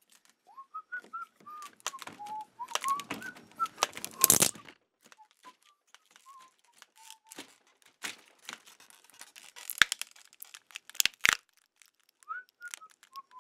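A person whistling a wandering tune that breaks off about halfway and picks up again briefly near the end, over scattered clicks and rustles of handling.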